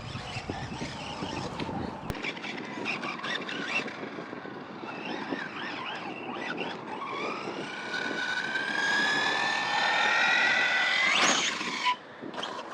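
Brushless electric motor of an RC buggy whining as it accelerates, its pitch climbing steadily for several seconds, then shooting up sharply and cutting off near the end. Before the motor whine there are scattered clicks and rustling.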